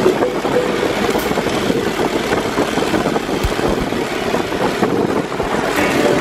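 Off-road buggy engine running as it drives over a bumpy dirt track, a steady dense drone with a few low bumps past the middle.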